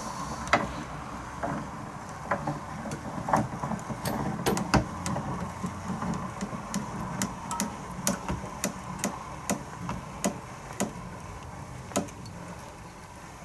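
Irregular sharp clicks, a few a second, from the metal tensioning lever of a homemade knot-strength tester being worked by hand, loading a fishing-line knot step by step to find its breaking strength.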